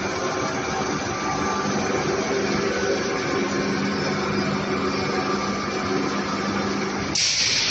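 Machinery of a refrigerator recycling line running steadily: a continuous mechanical drone with a steady hum and several held tones. Near the end a sudden loud hiss breaks in.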